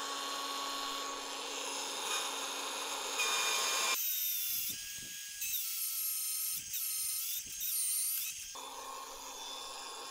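Magnetic drill with an annular cutter boring a 1-inch hole through 1/4-inch steel plate. The motor runs with a steady whine, then about four seconds in the sound changes to a high whine that dips in pitch about four times, and near the end the steady motor whine returns.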